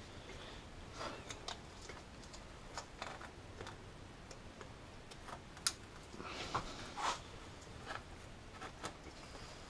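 Scattered light clicks and taps of parts being handled and fitted in a car's engine bay by gloved hands, with one sharper click and a brief rustle a little past halfway.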